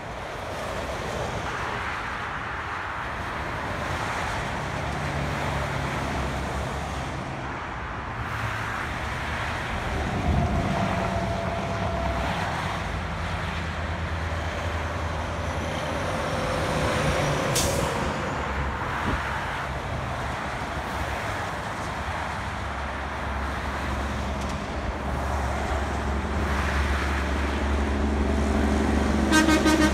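Steady highway traffic noise as cars, pickups and trucks pass by, with the low drone of truck engines swelling and fading as they go past. A horn starts right at the very end.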